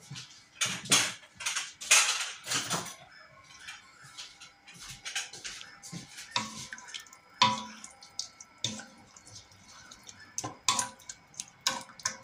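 Wooden spoon stirring veal, chopped onions, oil and water in a stainless steel pot: wet sloshing scrapes, loudest in the first three seconds, then scattered sharp knocks of the spoon against the pot that make the steel ring briefly.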